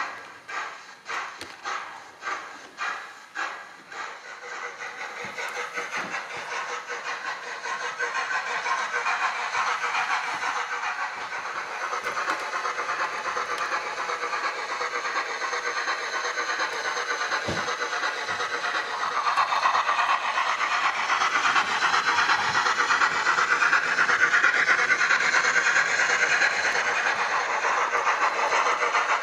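Zimo sound decoder in a Hornby OO gauge model of the LNER A4 Bittern playing steam locomotive exhaust beats. Separate chuffs at first quicken into a continuous rapid hissing beat, which grows louder from about twenty seconds in as the train runs closer.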